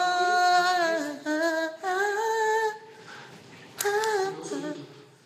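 A voice humming a wordless melody in long held, gently sliding notes, breaking off about three seconds in and coming back briefly for one more short phrase.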